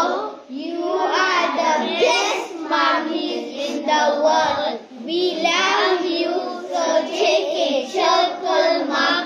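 A young boy singing a thank-you song to his mother in English, with lines such as "That I thought you should know" and "You are the best mummy in the world". He sings in phrases with short breaks between them.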